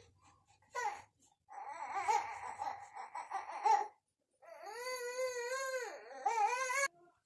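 A high-pitched voice crying and babbling: a short call, a long warbling stretch, then a long wavering cry and a shorter one near the end.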